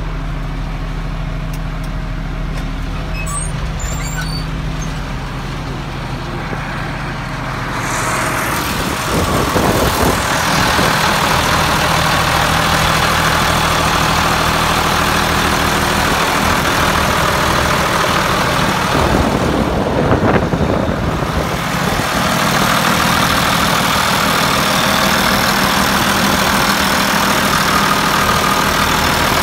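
Dresser 530 wheel loader's turbocharged diesel engine running steadily. It is muffled at first, then louder and more open, as if at the open engine compartment, from about eight seconds in.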